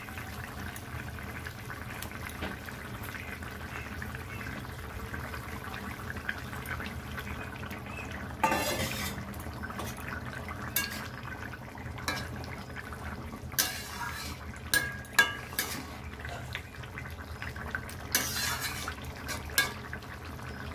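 A metal spatula and fish pieces clanking and scraping in a metal kadai over a steady bubbling simmer of curry, with several sharp clinks, the loudest about eight seconds in and again near the end.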